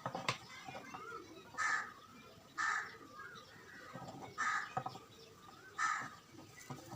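A bird calling four times in the background, short calls about one to two seconds apart, with a couple of sharp clicks at the very start.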